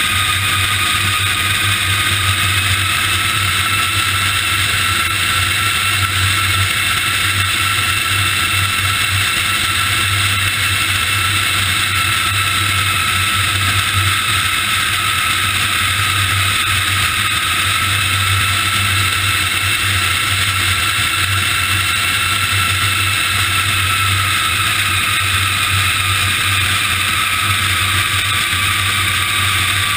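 Large four-engine jet on final approach with its landing gear down, heard from just under the fuselage: a steady rush of airflow and engine noise with a high, steady whine that drops slightly near the end.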